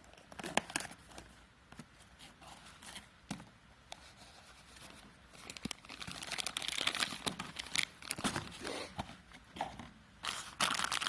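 Packaging of a brake master cylinder seal kit being handled and opened: crinkling and tearing with scattered small clicks, busiest about six seconds in and again near the end.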